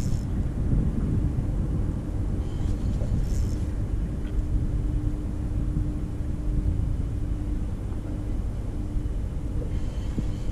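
Wind buffeting the microphone with a low rumble over open water. A faint steady motor hum runs through the middle.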